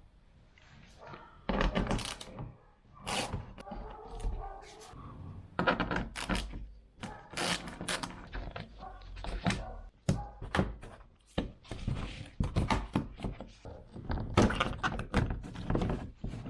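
An irregular run of knocks, clicks and thunks, many of them sharp and loud, with brief gaps between clusters.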